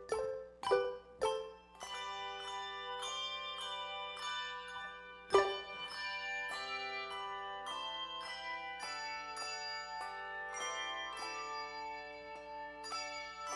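Instrumental music: a melody of separate ringing notes that fade after each strike, with a few louder accented strikes near the start and about five seconds in.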